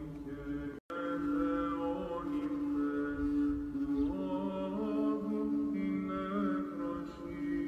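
Background music of chant-like singing over a steady held drone, the melody moving slowly above it. The audio cuts out for an instant about a second in.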